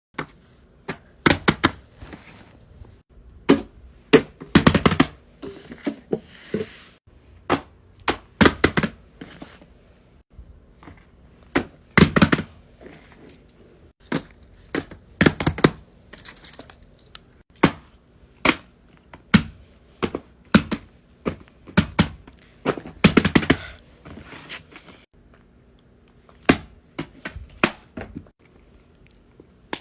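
Irregular taps, clicks and thunks of small objects being handled and set down on a hard surface, some coming in short clattering runs, over a faint steady hum.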